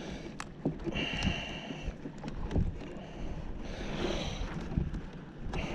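Wind rumbling on the microphone, with scattered light knocks and clicks of handling in a small boat.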